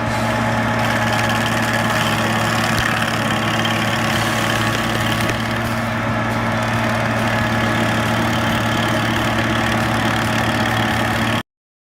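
Herder SCT-410H stump grinder's engine running at a steady speed with an even hum, cutting off suddenly near the end.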